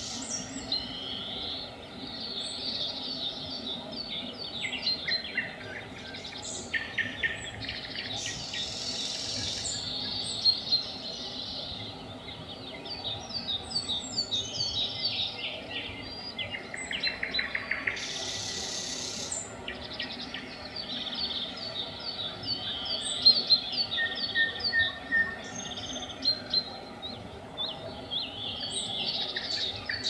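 Nightingales singing in a dawn chorus: phrases of quickly repeated notes, clicks and trills, with harsh rattling phrases about eight and eighteen seconds in, and other small birds chirping alongside.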